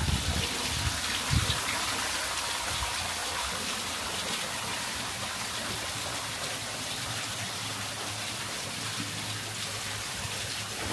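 Water running steadily from the many spouts of a spring fountain (çeşme), an even splashing hiss.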